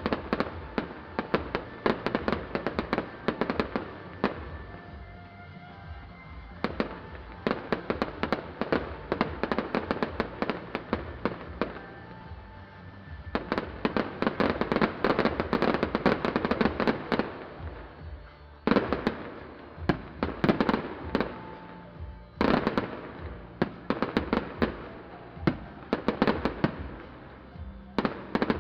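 Fireworks going off in dense waves of rapid crackles and pops, with brief lulls between flurries, over music with a steady bass.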